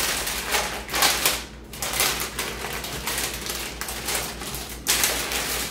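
Plastic bag of garlic bread crinkling and rustling as it is opened and the plastic tray of rolls is pulled out, with a short lull about a second and a half in.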